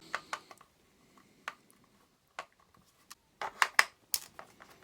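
Scattered small clicks and taps of a screwdriver and loosened screws on the plastic casing of a hot air gun being taken apart: single clicks early, then a quick cluster of them a little past the middle.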